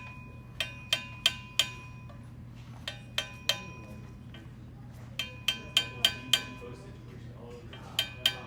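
Metal-on-metal tapping on a dent ball inside a metal casing, driving the ball against a damaged threaded section to push it back round. The taps come in short runs of two to five, about three a second, each with a brief bell-like ring.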